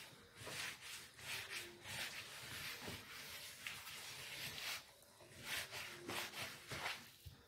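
A hand kneading and squeezing crumbly cornstarch-and-butter dough in a bowl, gathering it into a firm ball: soft, irregular rubbing and crumbling sounds.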